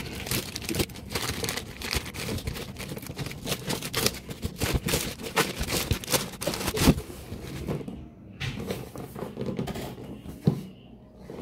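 Plastic courier mailer bag being torn open and crinkled as a boxed drill is pulled out of it. The rustling thins out after about eight seconds, and there is one sharp knock near the end.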